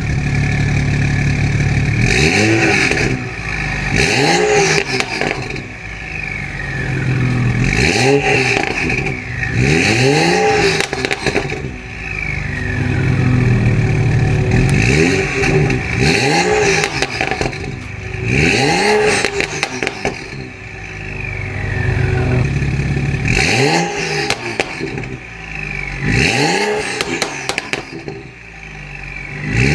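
BMW 335i's N55 turbocharged inline-six, with a catless downpipe and stage 2 tune, revved repeatedly from idle through its exhaust: about nine quick blips that rise and fall in pitch, each followed by crackling burbles on the overrun. The engine is not yet warmed up.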